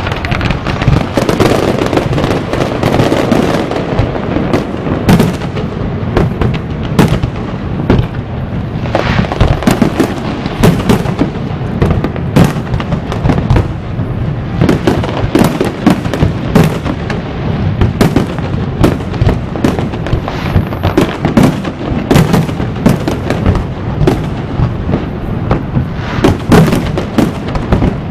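Fireworks display, a dense and continuous barrage of bangs, pops and crackles, several shells bursting every second with no let-up.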